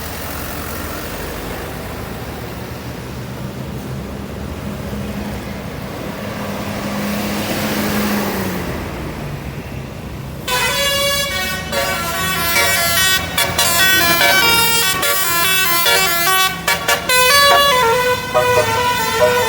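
A vehicle engine runs for about the first half, its low note rising and then dropping. About ten seconds in, a basuri telolet horn, a multi-trumpet musical air horn, starts suddenly and plays a quick melody of stepped notes, with a few short breaks.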